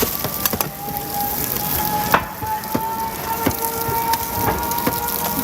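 Food sizzling on a hot griddle or pan while metal and wooden cooking utensils knock and scrape, with many sharp clacks, one louder about two seconds in, over a faint steady whine.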